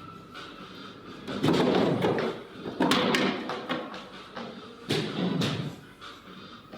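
Billiard balls being struck and colliding on a pool table: three sharp clicks, each with a short rumble after it.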